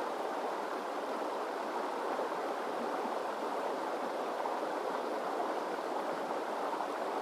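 River water flowing steadily over its bed, an even rushing babble with no change throughout.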